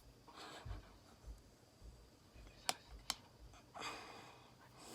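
Faint handling sounds: two sharp clicks a little under half a second apart, with soft rustling or breaths before and after.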